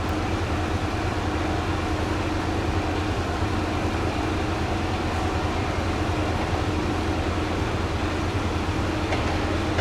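Diesel railcar engine idling with a steady low drone and a constant hum.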